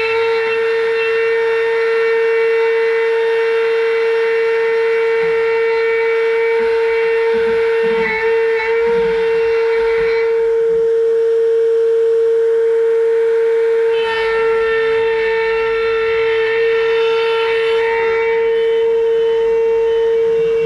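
CNC router spindle running with a loud, steady high-pitched whine while carving wood. Between about ten and fourteen seconds in, the upper part of the whine thins out, then comes back.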